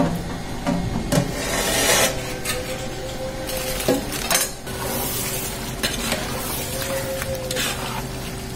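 Chicken pieces in masala sizzling in a large aluminium pot, stirred and scraped with a metal ladle in irregular strokes.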